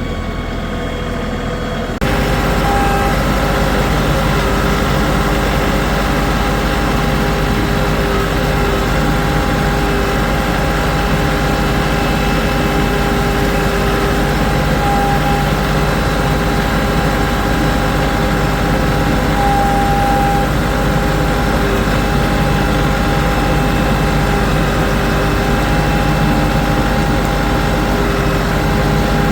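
An engine running steadily at constant speed, with no revving. The sound jumps suddenly louder about two seconds in and then holds even.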